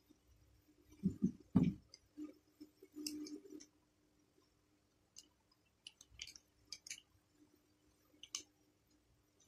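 Small parts of a spinning fishing reel being handled and fitted back together: a few dull knocks about a second in, then scattered sharp clicks of metal and plastic parts.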